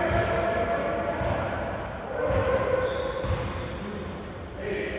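Basketball bouncing on an indoor court floor in a series of low thuds, with voices in the background.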